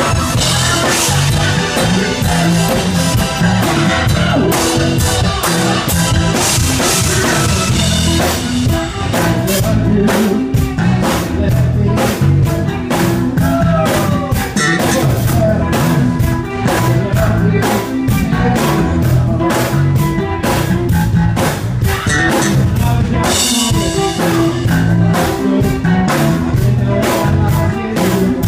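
Live band playing loud amplified music: a drum kit keeping a steady beat under electric guitar, bass and keyboards, with a lead vocalist singing over it.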